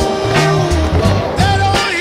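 Background music: a song with a steady bass line, and a singing voice coming in near the end.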